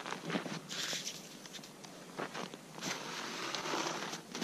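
A short-handled shovel scraping and scooping snow and ice slush around an ice-fishing hole: a few short, crunchy strokes.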